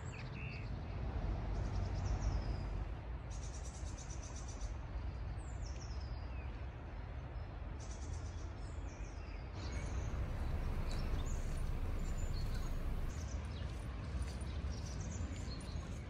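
Songbirds chirping and singing, many short high falling calls that grow busier toward the second half, over a steady low rumble.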